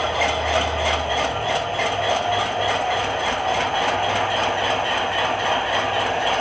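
ESU LokSound decoder's GE Dash 9 diesel prime mover sound from an HO scale model, played through an ESU 50348 passive-radiator speaker: the engine running steadily with a rapid, even rhythmic beat, its low hum shifting in pitch about a second and a half in.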